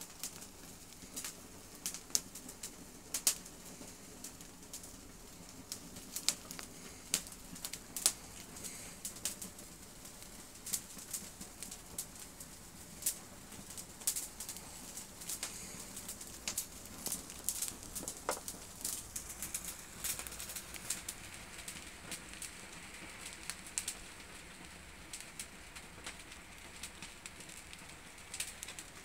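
Dry fir or spruce needles and twigs burning, crackling with irregular sharp pops and snaps.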